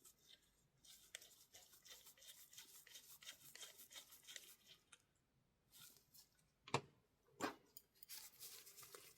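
Small hand tools scraping and prying at an iPhone 16e's casing during disassembly: several seconds of quiet rasping, then two sharp clicks about a second apart, then more scraping near the end.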